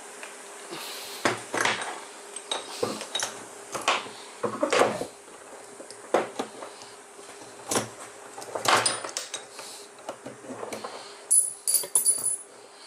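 Metal tools and small metal parts clinking and knocking against each other and the work surface: irregular sharp clacks, with a quick run of bright, ringing metallic clinks near the end.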